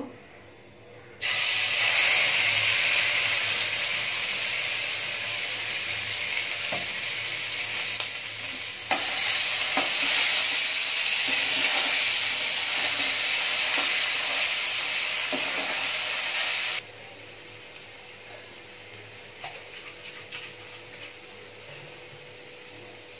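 Ground onion, garlic, ginger and tomato paste sizzling in hot oil in a kadhai as it is stirred with a metal spatula, with a few light spatula scrapes. The sizzle starts suddenly about a second in and cuts off abruptly after about sixteen seconds, leaving a quieter stretch with a faint steady hum and a few light clicks.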